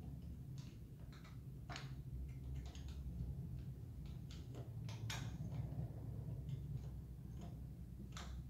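Irregular light clicks and rattles of saw chain links on a Riwall RECS 2040 electric chainsaw's 16-inch bar as the chain is moved and checked by hand, over a steady low hum.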